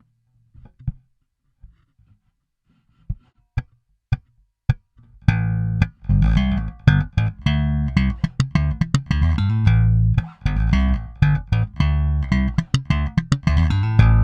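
Fender Japan Jaguar Bass electric bass played direct: a few short, quiet muted notes, then about five seconds in a busy riff of sharply plucked notes with a deep low end.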